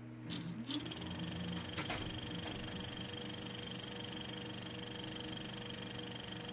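A small motor spins up with a short rising whine and then runs steadily with a hum and a high whine. A couple of light clicks come about one and two seconds in.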